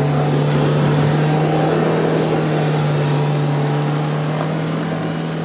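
Lada Niva 4x4's engine running with a steady low hum as the vehicle crawls away slowly through mud and leaves, heard close behind its exhaust.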